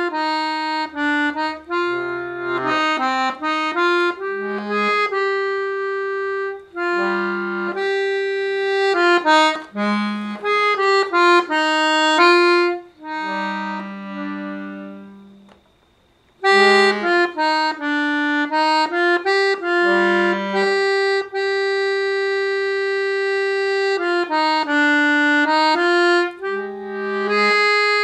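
Gaillard Saphir diatonic button accordion (melodeon) in B♭/E♭ playing an improvised tune of held melody notes over bass notes. About halfway through the playing fades away to a brief silence, then starts again.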